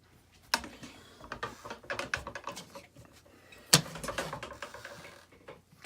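Small objects being handled on a workbench: irregular clicks, taps and rustling, with a sharp knock about half a second in and a louder one a little under four seconds in.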